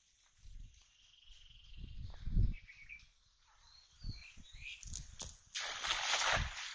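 Low thumps and rustling as a cast net is gathered in the hands, with a few faint bird chirps. Near the end the net is thrown: a hissing rush of about a second as it flies out and lands on the pond, then it cuts off.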